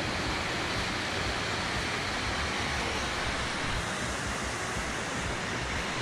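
Spring-fed creek cascading down a rocky waterfall: a steady rush of falling water.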